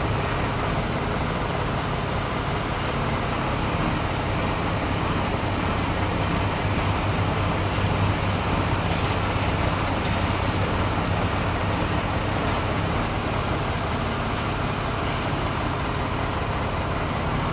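An engine running steadily, with an even low hum that holds the same throughout.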